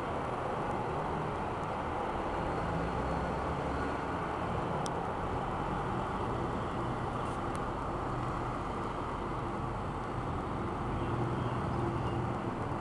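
Backhoe engine running steadily, a continuous low mechanical hum with some rumble, with a few faint clicks.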